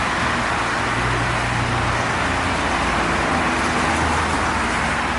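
Busy road traffic passing: a steady wash of tyre and engine noise with a low engine hum underneath.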